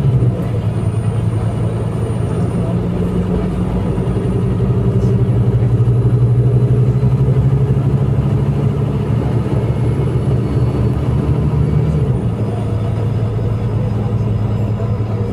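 Scania K310IA bus's diesel engine running steadily with a deep hum; about twelve seconds in its note drops a little.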